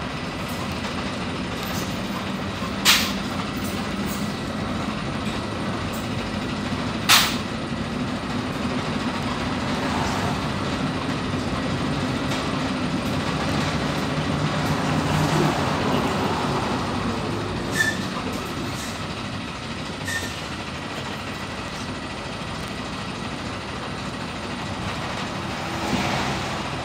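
PAZ 320414 bus heard from inside the cabin while under way: the engine runs steadily under road and body noise, its note swelling and rising slightly about halfway through. Two sharp knocks, cabin rattles over bumps, come a few seconds in, with a few lighter clicks later.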